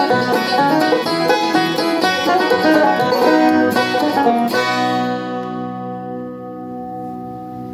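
Banjo picked in a quick run of notes, which ends about four and a half seconds in on a final chord that rings on and slowly fades.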